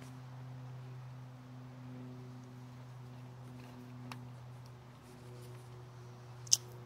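Quiet steady low hum with small handling sounds from hands tying thread close to the microphone: a faint tick about four seconds in and a sharp click near the end.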